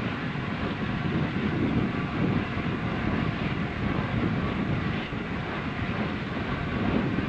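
Steam-hauled train on the move: a steady rumble of running and rail noise, with no breaks.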